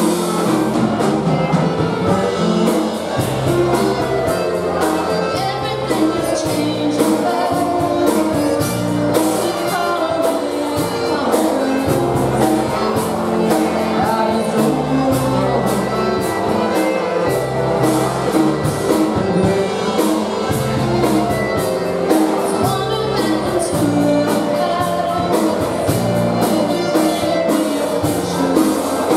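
Live polka band playing dance music with a sung vocal: accordion, saxophone, trumpet and drum kit over a steady bass beat.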